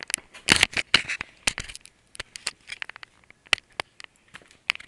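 Irregular clicks, crackles and rustles of a handheld camera being handled and swung around, loudest in the first second.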